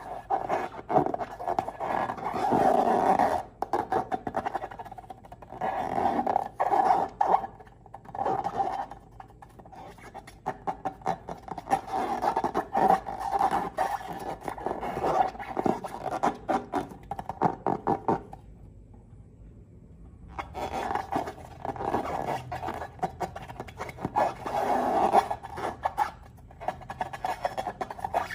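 Slime and balloons being squeezed and handled, giving a busy stream of wet crackling, popping and squelching clicks with growl-like rubbing. The sound stops for a couple of seconds about two-thirds of the way through.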